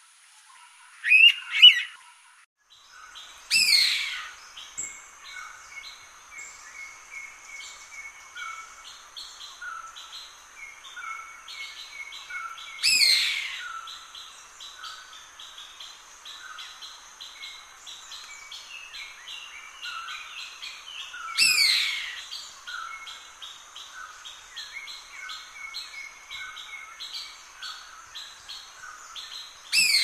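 Indian pitta calling: loud, sharply falling whistles repeated about every eight to nine seconds. A steady high tone and quick repeated chirps of other birds run underneath.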